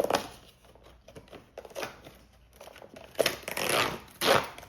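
Toy packaging being handled and opened by hand, in irregular crinkling bursts: one right at the start, then a louder run from about three seconds in.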